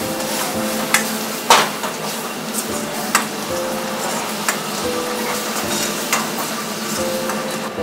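Food sizzling in a wok on a gas burner while a metal ladle stirs and scrapes it. Several sharp clanks of the ladle striking the wok, a second or two apart.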